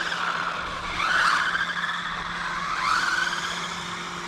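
Electric motors of small 1/16-scale brushless RC cars running on tarmac. The motor whine rises with acceleration about a second in and again near three seconds.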